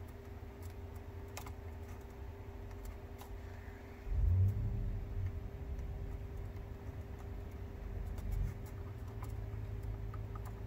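Light clicks and handling noise from small plastic and metal parts of an instrument cluster being worked by hand, as a new odometer worm gear is fitted onto the odometer motor. A low thump about four seconds in and a smaller one near the end, over a steady faint hum.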